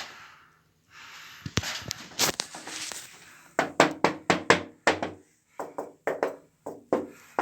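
Hard knocks on bathroom wall tiles that have cracked and are lifting from the wall. A few scattered knocks come first, then a steady run of two or three a second from about halfway, each with a short ring after it.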